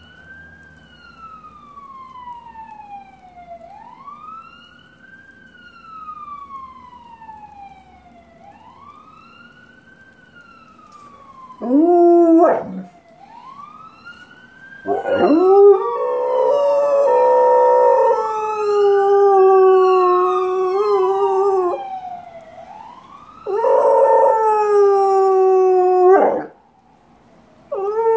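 A fire truck's siren wails faintly, rising and falling about every four to five seconds. About twelve seconds in, a black Labrador retriever starts howling along with it: one short howl, then two long howls that are much louder than the siren.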